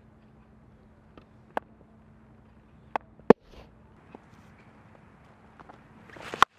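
Cricket ground sounds over a faint steady hum: a few sharp, isolated knocks and clicks, then near the end a rising rush of noise ending in a sharp crack of bat on ball as the batter sweeps.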